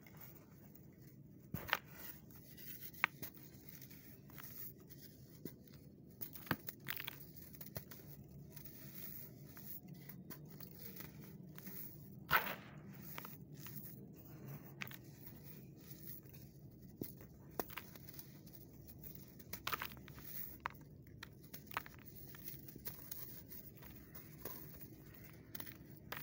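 Hands crumbling clumps of dry sand and letting the grains trickle through the fingers: soft grainy crunching with scattered sharper crunches, the loudest about halfway through.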